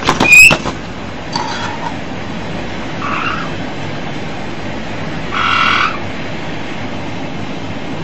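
White-bellied caiques calling while being spoon-fed: a loud, sharp call right at the start, then short buzzy squawks about one and a half, three and five and a half seconds in, the last the loudest, over a steady background hiss.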